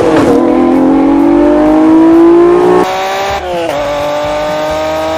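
Supercharged NSX's V6 accelerating hard, its pitch climbing steadily. About three seconds in the sound cuts abruptly to a quieter take; half a second later it dips briefly, as in a gear change, then climbs again.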